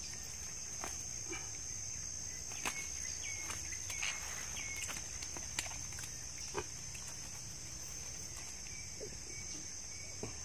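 Steady high-pitched buzz of insects, with scattered clicks and rustles of the caught walking catfish and the fishing line being handled in dry leaves and undergrowth.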